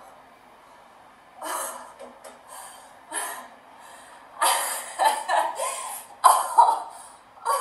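A woman's sharp, forceful exhalations and effort grunts during dumbbell squats. They come as a run of short bursts that grow louder and closer together in the second half.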